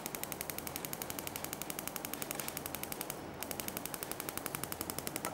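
Gas hob's electric spark igniter clicking rapidly and evenly, about a dozen clicks a second, with a short break a little past the middle.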